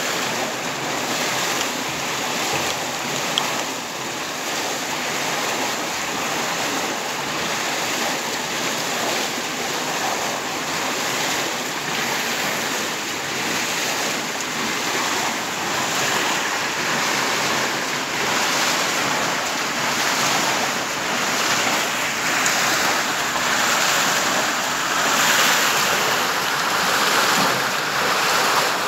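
Water rushing and splashing through a turning mill water wheel, a steady sound that grows a little louder near the end. One short click about three seconds in.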